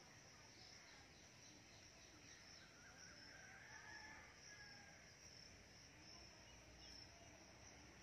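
Near silence with faint, steady, high-pitched insect chirring.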